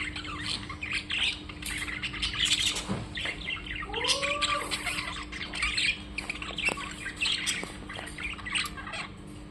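Several birds chirping and squawking, with rapid short high calls throughout and one longer call that rises and falls about four seconds in. A faint steady hum runs underneath.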